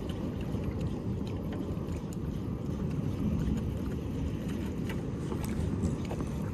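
Steady low rumble of wind and choppy water around a small boat at sea, with scattered faint ticks.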